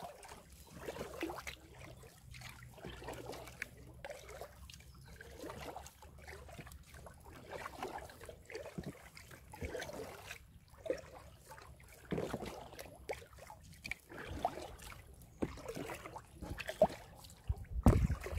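Water sloshing and trickling around an inflatable kayak as it is paddled along, in irregular swishes every second or two, with a louder low thump near the end.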